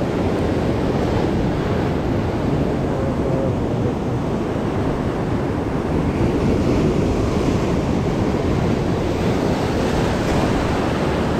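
Sea surf breaking and washing over a rocky shoreline: a steady, loud rushing of water, with wind buffeting the microphone.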